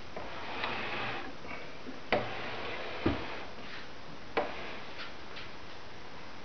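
A homemade roller printing press being handled: a soft rustle of cloth, then three sharp wooden knocks about a second apart.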